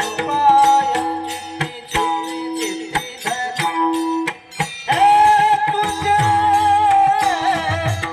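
A male singer holds and ornaments long notes in a Marathi devotional song over a steady drone. Low mridang drum strokes and sharp percussive clicks accompany him. There is a short dip in the sound about four and a half seconds in.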